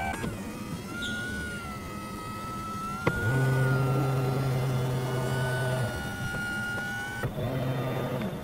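Electric motors of a car's power rear seat and leg rest running as the seat adjusts, a steady motor hum. The hum comes in two runs, one of about three seconds in the middle and a shorter one near the end, each starting with a sharp click.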